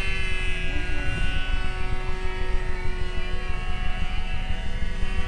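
Fox .45 two-stroke glow engine of a model airplane running at high revs in flight, a distant engine note holding a steady pitch.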